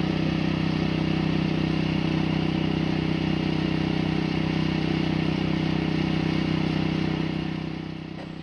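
An engine running steadily at a constant speed, its level dropping about three-quarters of the way through.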